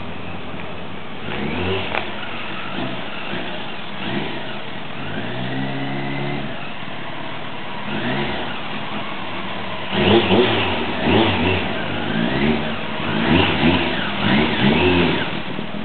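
Kawasaki ZZR1100's inline-four engine through a carbon muffler, faint at first, then getting louder as the motorcycle rides up and passes close by. From about ten seconds in, the engine note rises and falls several times with the throttle.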